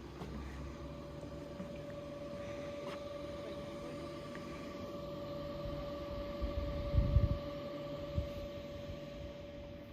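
Steady mechanical hum with a constant whine, and a few low thumps about seven seconds in.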